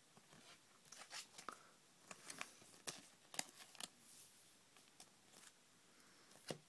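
Faint rustling and light clicks of Pokémon trading cards being handled, a quick run of them about one to three seconds in and one more near the end.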